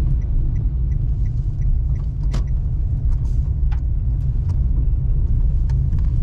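Daihatsu Mira Cocoa kei car on the move: a steady low rumble of road and engine noise, with faint light ticks and one sharper click a little over two seconds in.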